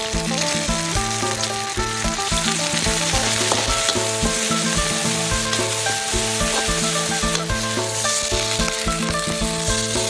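Curry paste sizzling in oil in a hot metal wok while a metal spatula stirs and scrapes it, over background music.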